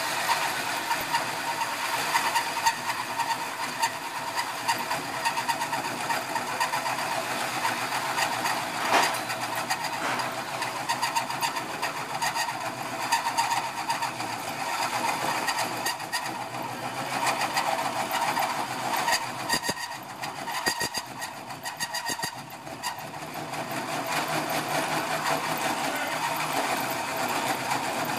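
Power drill spinning a hole saw through a metal plate about an eighth of an inch thick: a steady grinding, rasping cut that wavers as the saw bounces in its widened groove, easing off for a moment about two-thirds of the way through.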